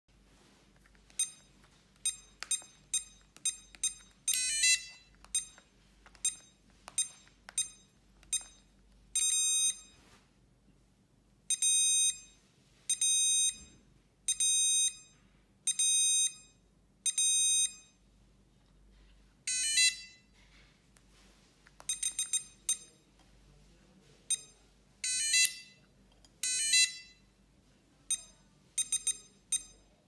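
Electronic buzzer of a fingerprint access-control board beeping in a high tone. It gives short single beeps as remote-control keys are entered and longer beeps of about half a second, five in a row, as a finger is pressed on the fingerprint sensor to register it. A few rapid rattling trills of beeps come in between.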